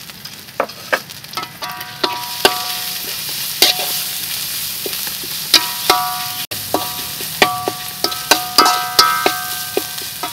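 Metal spatula scraping and knocking against a steel wok, the wok ringing after many of the strikes, while curry paste sizzles in hot oil. The sizzle grows louder about two seconds in.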